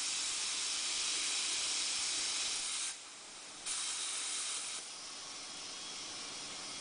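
Compressed air from the Bright LC 885 tyre changer's inflator hissing as the tyre is inflated: a loud hiss for about three seconds, a short drop, a second loud burst of about a second, then a softer steady hiss.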